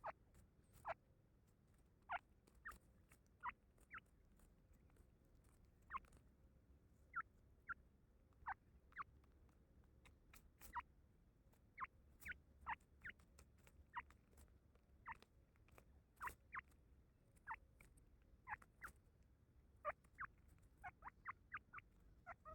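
Grey francolin giving short, single high peeping calls, about one a second at an uneven pace, coming in a quicker run near the end.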